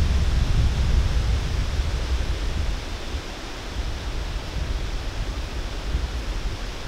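Steady hiss with a low, uneven rumble, typical of wind on the microphone, easing a little about three seconds in.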